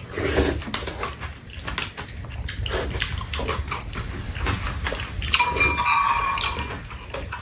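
Two people eating from bowls: metal spoons clicking against the dishes, with chewing and slurping of soup. About five seconds in a steady high whistle-like tone sounds for just over a second.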